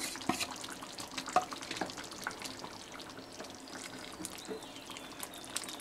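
Yoghurt chicken curry simmering in a kadai, with small bubbles popping, and a wooden spatula stirring and scraping through the gravy.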